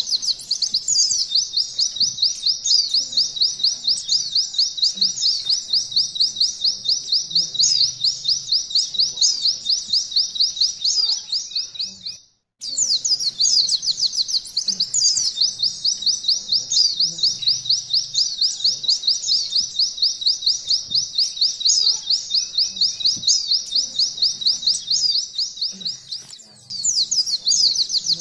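Oriental white-eye (pleci) singing a long, fast, even trill in the style of a canary's 'nembak' roll. It breaks off for a moment just after the middle and again near the end, then resumes.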